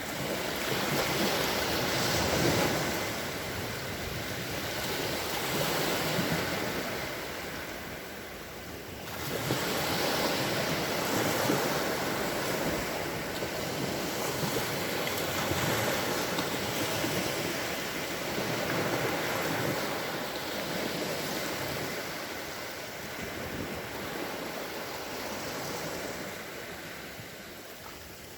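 Calm sea waves washing onto the shore: a steady rush of surf that swells and eases every few seconds. It dips briefly about nine seconds in, then the next wave comes in louder.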